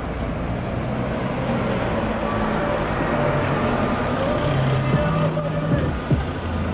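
Road traffic on a city street: motor vehicle engines running close by, with a steady engine hum that grows louder in the second half as a car comes right alongside.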